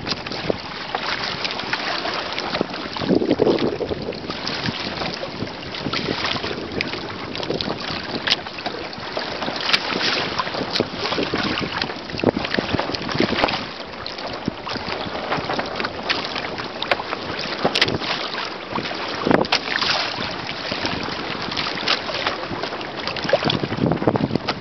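Wind buffeting the microphone over water rushing and slapping against the hull of a Hobie Adventure Island sailing kayak moving through ocean chop, with irregular splashes.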